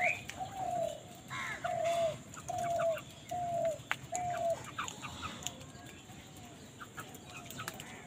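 A crow cawing, a run of about six similar calls each falling slightly at the end, roughly one every second, over the first four and a half seconds. After that only faint short chirps and ticks.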